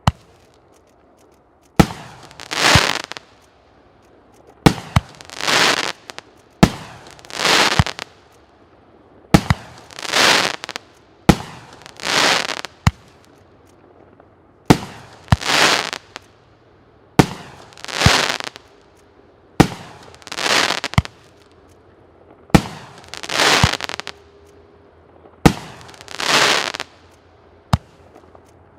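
A C9009 'Oligarkh' fireworks cake firing its shots one by one, about every two to three seconds. Each shot is a sharp launch thump followed about a second later by a crackling burst in the air.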